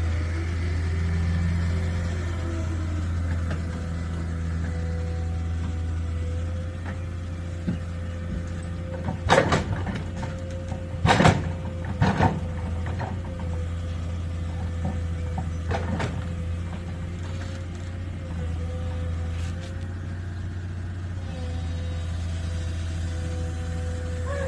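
A tractor and a tracked excavator run steadily at idle with a low drone. About halfway through come several loud thuds and clunks as soil and clods drop from the excavator bucket into the steel tipping trolley.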